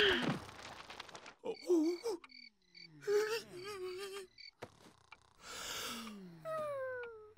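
A cartoon dog whimpering and groaning in a string of short, separate sounds, some wavering and some sliding down in pitch.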